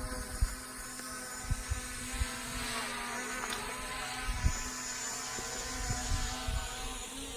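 A steady motor hum with a droning pitch, with irregular low thumps.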